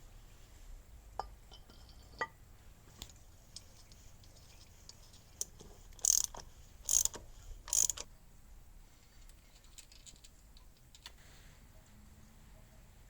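Metal engine parts and hand tools clicking and clinking as they are worked on, with three short, raspy scraping bursts about a second apart near the middle.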